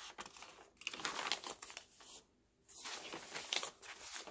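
Pages of coffee-dyed paper in a handmade journal rustling and crinkling as they are turned by hand, in two main bursts about a second apart.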